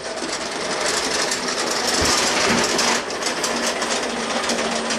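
Ariens 1028 snowblower's 10 HP single-cylinder four-stroke engine running, warming up before an oil change, with a fast, even clatter. It grows louder up to about three seconds in, then eases slightly.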